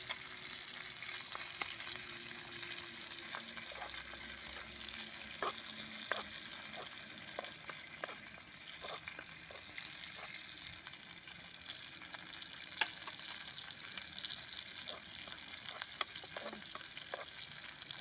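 Chicken pieces and onions sizzling steadily in a frying pan over a wood fire. From about five seconds in, a metal spoon clicks and scrapes against the pan as the food is stirred.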